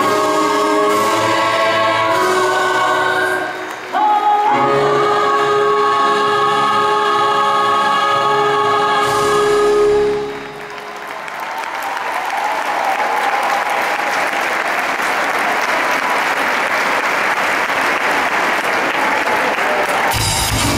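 A choir-backed song holds long sustained notes, with a brief drop about four seconds in, and ends about halfway through. The audience's applause rises and fills the second half, until a new loud music track with a heavy bass beat cuts in near the end.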